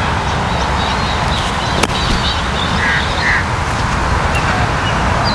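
A golf club striking the ball on a short pitch shot: one sharp click about two seconds in. It sits over a steady low rumble of wind noise, with birds calling twice around three seconds in and faint chirps behind.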